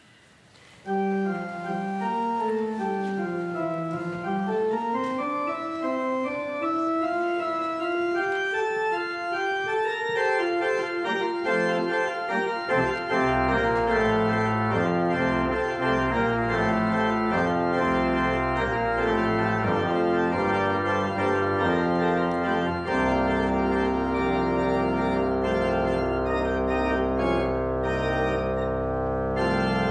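Church organ playing. About a second in it begins with a single melody line that winds down and then climbs. After about twelve seconds full chords with deep bass notes come in.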